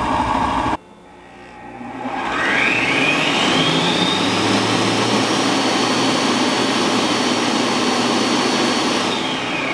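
Multo Cooking Pal cooking robot in its deep-clean cycle. Its motor spins the blades up with a rising whine, then runs loud and steady at high speed, churning hot soapy water in the bowl, and starts to wind down near the end. It sounds like it was going to take off.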